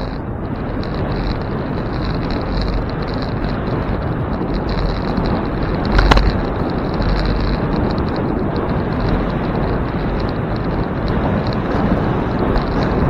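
Bicycle rolling over city pavement: steady tyre and road rumble, with a single sharp knock about six seconds in.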